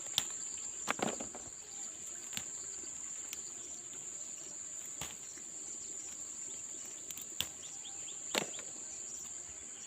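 Field insects keeping up one steady, high-pitched drone, with a few short clicks and rustles scattered over it.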